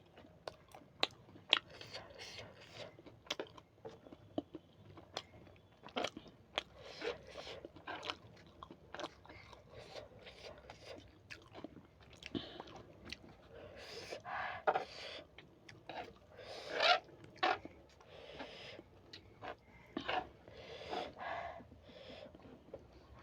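Close-up mukbang eating: a person biting and chewing crunchy food, with many sharp crunches. Longer, louder chewing comes in the second half.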